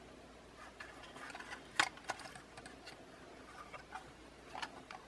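Light clicks and taps of the DJI Mavic Air 2 drone's plastic body being handled and turned over in the hands, with one sharper click a little under two seconds in.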